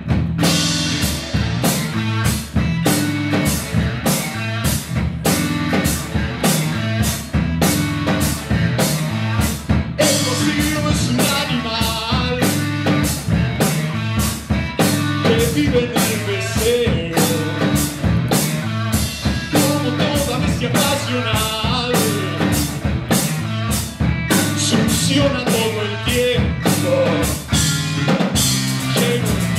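Live rock band playing at a steady beat: drum kit, electric bass and electric guitars.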